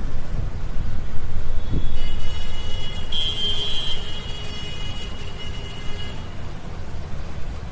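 Road traffic: a steady low rumble of vehicle engines and tyres. About two seconds in, a high steady tone joins the rumble, loudest around the middle and fading out after about four seconds.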